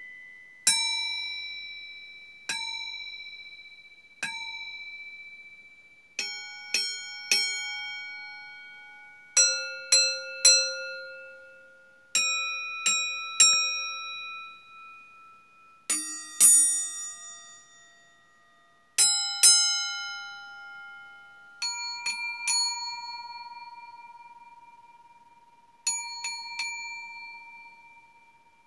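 Stainless steel bowls struck as singing bowls. Each strike rings with several overtones and fades over a few seconds. Single strikes about two seconds apart come first, then quick runs of two or three strikes on bowls of different pitches.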